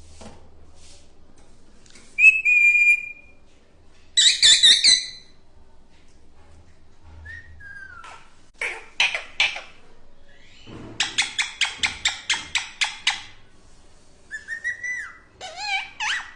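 Parrot whistling and calling: a held whistle, a burst of harsh calls, then a quick run of about a dozen clicking pulses, and gliding whistles near the end.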